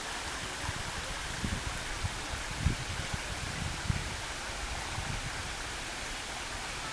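Shallow water running fast down a narrow concrete channel, a steady rushing hiss, with a few soft low thumps on the microphone.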